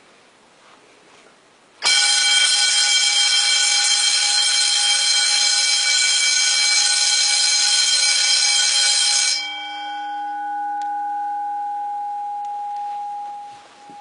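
Electric fire alarm bell starts ringing abruptly about two seconds in: a loud, continuous ring from the hammer beating on the gong. About nine seconds in it drops to a quieter, steady ringing tone, which fades out near the end.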